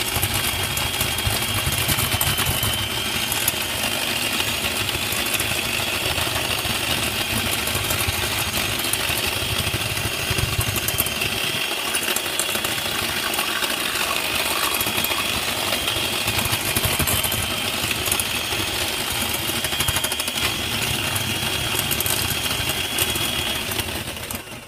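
Electric hand whisk running steadily at one speed with a high motor whine, its beaters mixing pancake batter in a bowl. It winds down and stops near the end.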